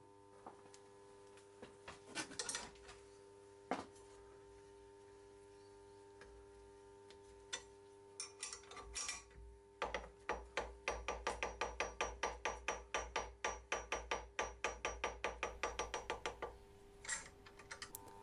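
Homemade screw press being tightened to push a ball bearing into a plastic lawn mower bearing seat: a few separate metal clicks and knocks, then a long run of quick, regular clicks that stops near the end.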